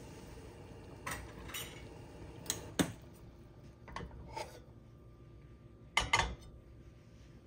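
Dishes clinking and knocking in a series of short strikes, mostly in pairs about half a second apart, ending with a ceramic soup bowl set down on a gas stove's metal grate about six seconds in.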